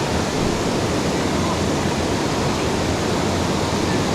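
Steady, loud rush of a waterfall running at high flow.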